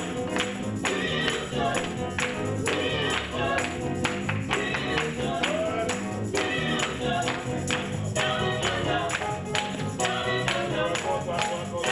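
Upbeat gospel music: a choir singing over a steady beat with sharp percussion hits.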